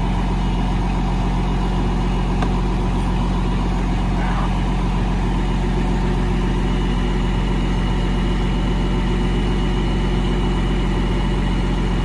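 Farm tractor engine idling steadily.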